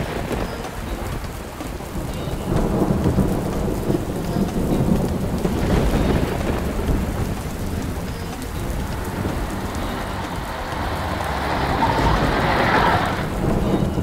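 Heavy rain pouring steadily, with rolling thunder that swells a few seconds in and again near the end.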